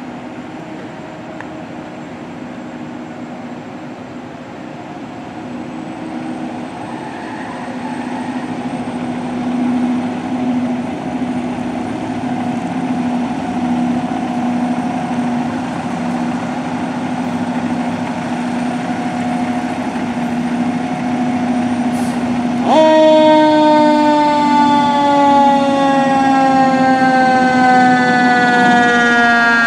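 Fire engine's diesel engine running with a steady hum, growing louder as the truck pulls out. About 23 seconds in, a mechanical Federal Q siren spins up sharply and then winds down slowly in pitch.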